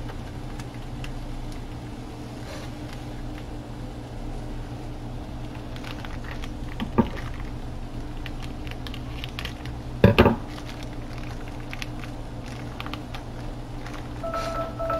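Kitchen handling sounds over a steady low hum: light clicks and rustles, a sharp knock about seven seconds in and a louder clatter of cookware about ten seconds in. A repeating electronic beep starts near the end.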